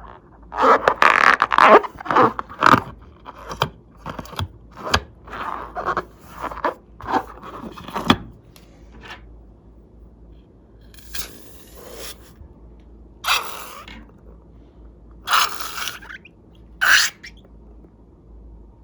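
Slime being worked by hand: crackly, scraping squishes, a quick run of them at first, then a few separate, longer swishes spaced out.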